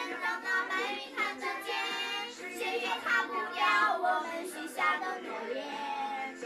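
A group of children singing a Mandarin pop love song together, unaccompanied.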